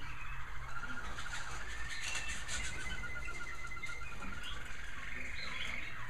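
American Singer canaries singing, several birds overlapping in rapid rolling trills of quickly repeated notes mixed with short whistled phrases.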